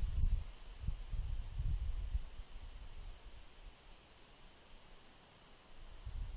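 Insects, likely crickets, chirping steadily at about two to three chirps a second. A low rumble, louder than the chirping, comes and goes during the first two seconds and again near the end.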